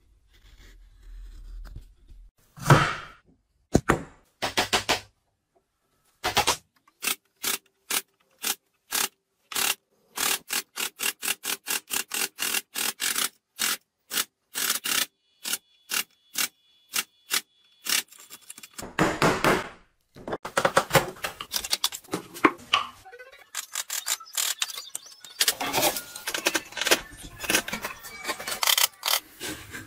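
Wood chisel being struck again and again to chop a mortise: sharp knocks, about three a second, then rougher scraping and crunching as the chisel pares the walls and levers chips out of the hole.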